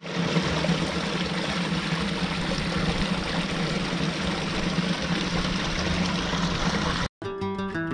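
River water running, a steady rushing with a low steady hum beneath it; it cuts off suddenly about seven seconds in.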